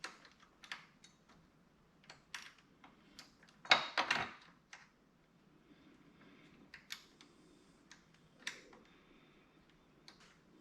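Scattered small clicks and light metallic clatter of bolts, nuts and clamp brackets being handled and fitted by hand, with a louder rattle about four seconds in.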